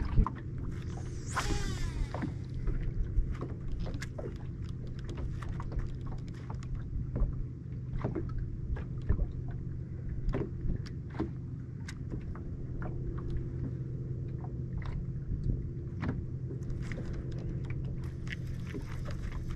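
Steady low hum of a boat's electric trolling motor holding position, with scattered light knocks and taps on the boat and a brief rising swish about a second and a half in.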